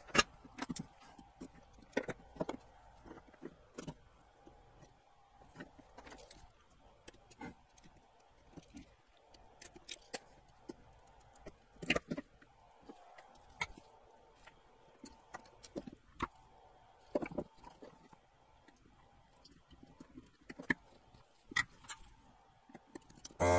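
Scattered light clicks and taps of desoldering work on a circuit board, with removed capacitors and tools set down on the bench, over a faint steady hum; a short buzz near the end.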